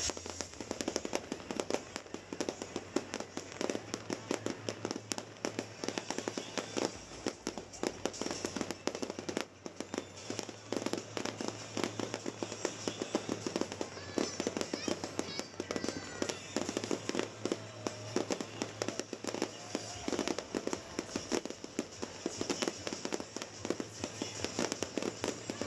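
Fireworks display: a continuous barrage of bangs and crackling pops, many a second, without a break.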